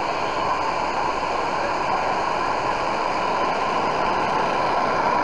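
Artificial wave in a wave pool breaking and washing through the shallows: a loud, steady rush of churning water.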